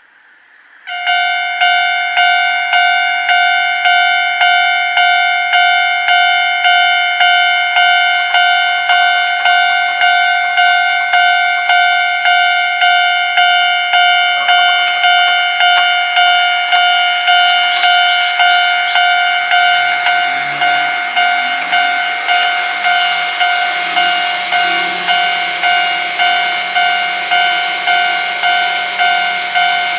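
Japanese level-crossing warning bell starts about a second in and rings in an even, repeating ding about one and a half times a second. In the second half a train's running noise grows beneath the bells as it approaches, with brief high squeals just before.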